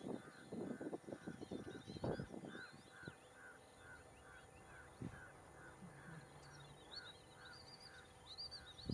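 Birds calling: one bird repeats a short note evenly, about three times a second, while higher chirps from other birds come and go and grow busier near the end.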